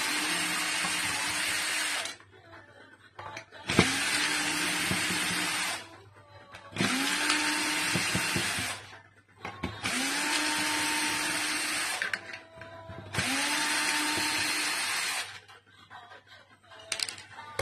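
Cordless drill-driver unscrewing screws from a power amplifier's chassis in five separate runs of about two seconds each. The motor whirs up to speed at the start of each run, with small clicks in the gaps between.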